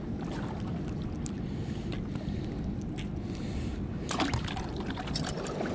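Steady rush of water pouring over a spillway, with a few scattered sharp clicks and taps, most of them near the end.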